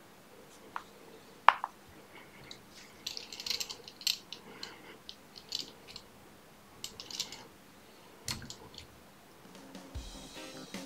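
Fly-tying thread being waxed with a block of clear wax: short scratchy rubbing strokes in quick runs, with a few light clicks. Faint music comes in near the end.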